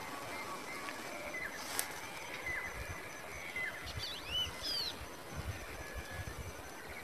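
Open-field ambience: a steady faint hiss with scattered short bird chirps, a single sharp click about two seconds in, and a few quick rising-and-falling bird whistles a little after four seconds.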